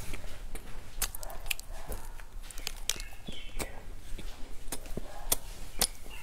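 Close-up eating sounds of a person biting and chewing a chocolate-coated marshmallow cake: irregular wet clicks and smacks of the mouth, several a second.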